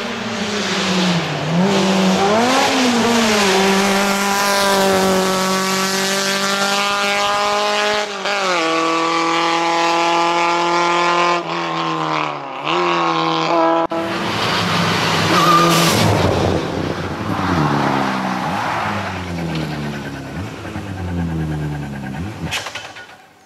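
Race car engine at high revs climbing a hill-climb course, its pitch rising through the gears with several sharp drops at gear changes. Later the pitch falls again and again as the car slows into a bend.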